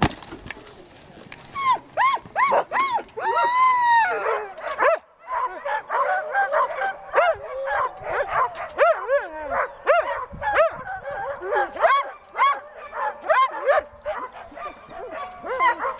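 A team of sled dogs yapping, barking and whining over one another in a near-constant clamour, with one longer drawn-out whine about three seconds in and a brief lull near five seconds. This is the excited din of sled dogs on their lines, eager to run.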